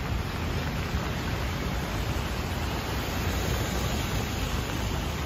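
Steady rush of a flooded urban stream's fast, churning floodwater: a constant even noise, strongest in the low range.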